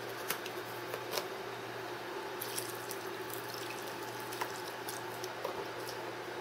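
Chicken broth pouring from a carton into a saucepan of mashed cauliflower: a steady liquid trickle with a few faint clicks.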